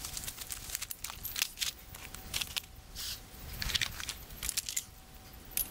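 Rustling and crinkling of a nylon stuff sack and bags being handled, in irregular bursts with light clicks and knocks.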